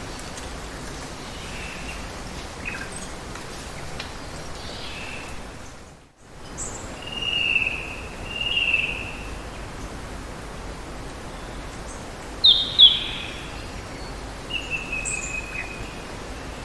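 Steady hiss of falling or running water with birds calling over it: two drawn-out chirping calls a second or so after a brief dropout about 6 s in, two sharp, loud chirps around 12 to 13 seconds in, and a falling call near the end.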